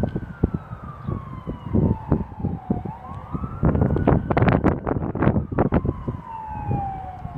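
A siren wailing, each cycle climbing quickly then sliding slowly down in pitch, twice, under loud irregular rumbling bursts of noise on the microphone.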